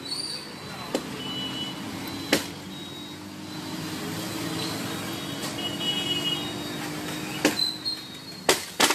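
A motor vehicle engine runs steadily underneath. A few sharp cracks of branches from a fallen tree being snapped by hand come about a second in, at two and a half seconds, and in a quick cluster near the end.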